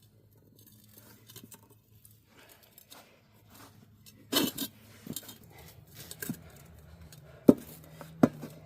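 Scattered clicks and a few sharp knocks from hands and tools working a tyre and inner tube onto a rim, over a faint steady low hum.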